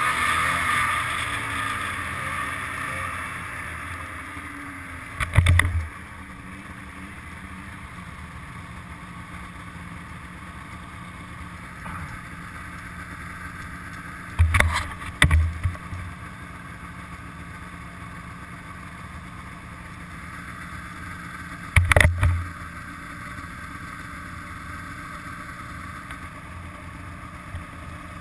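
Snowmobile engine running at trail speed, easing off within the first few seconds to a steady low idle. Three short loud knocks on the microphone come about 5, 15 and 22 seconds in.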